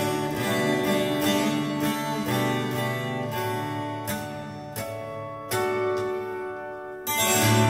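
Recorded instrumental music played through a custom high-end car audio system, heard inside the car: held notes with sharp new notes struck about four, five and seven seconds in. It grows quieter midway, then comes back strongly near the end.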